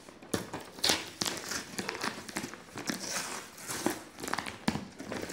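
A cardboard courier box being opened by hand: packing tape and plastic wrapping crinkling and ripping in irregular crackles.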